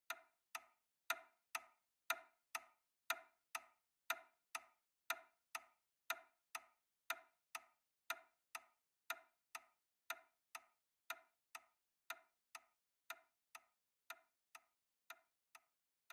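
A clock ticking steadily, about two ticks a second, growing fainter toward the end.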